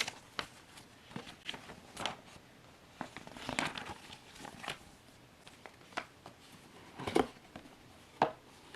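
Packaging being handled: irregular paper and plastic rustling and crinkling with small clicks and taps, a longer rustle about halfway through and two sharper knocks near the end.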